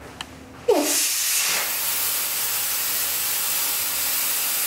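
Air rushing out of an inflatable culvert plug through its valve, a steady loud hiss that starts suddenly under a second in with a short falling squeal, as the spring-loaded valve insert being screwed in pushes the poppet open and the plug deflates.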